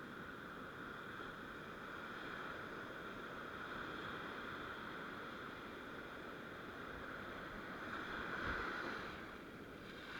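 Sea surf washing on the shore: a steady rush that swells about eight seconds in and then eases.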